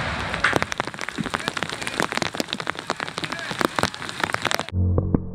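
Dense crackling and pattering in the wake of an explosive blast: a fast, irregular run of small sharp ticks. Near the end it cuts off abruptly to a quieter low steady hum.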